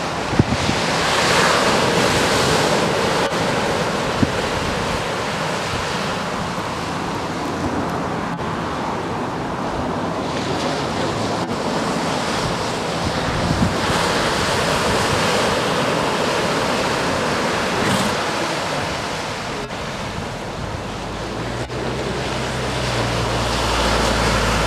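Ocean surf breaking on a sandy beach: a steady wash of waves that swells and eases every few seconds. Wind buffets the microphone near the end with a low rumble.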